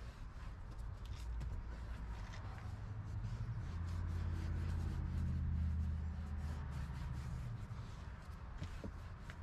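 Microfiber towel rubbing and wiping across a leather car seat, a soft scratchy rubbing with small clicks. A low droning hum swells in the background from about three seconds in and fades by about seven and a half seconds.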